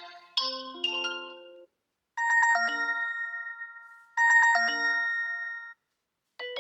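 OnePlus 12 ringtones playing: a short chiming figure dies away, then a bell-like ringtone phrase plays twice over, each time starting with a bright struck chord and ringing out. A different ringtone tune starts just before the end.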